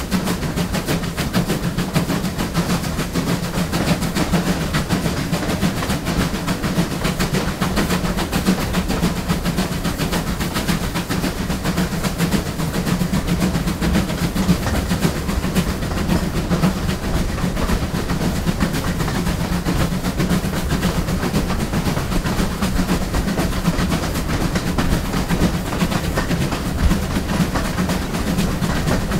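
GWR Collett Goods 0-6-0 steam locomotive running along the line, heard from on the engine itself: a steady low rumble with a continuous fine clatter of wheels on the rails and the working motion.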